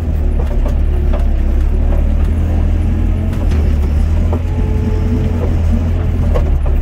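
Doosan DX55 mini excavator's diesel engine running steadily under digging load, with a constant low drone, heard from inside the cab. A few light clicks are scattered through it.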